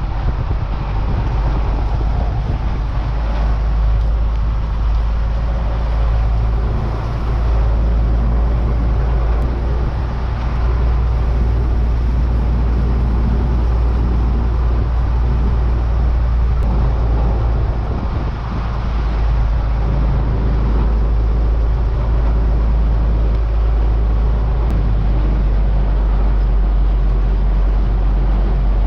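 A heavy diesel engine running steadily, a continuous low rumble with a slight dip in level around a third of the way in and again later, as of a combine working a corn field.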